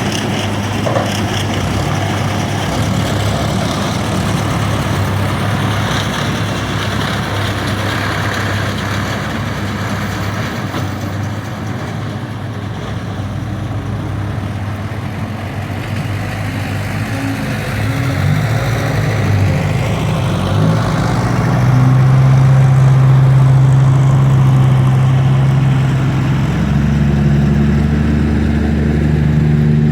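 Heavy vehicle engine running steadily, then revving up from about eighteen seconds in with a rising whine, and running faster and louder from about twenty-two seconds on.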